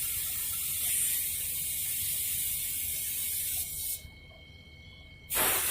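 Steady hiss over a low hum from a window AC running during R22 gas charging. The sound almost drops out for about a second near the end, then returns as a louder burst of hiss.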